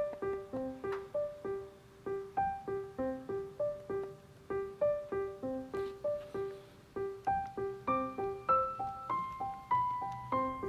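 Background piano music: a light tune of short single notes, about three a second, over one repeating note, with the melody climbing higher in the second half.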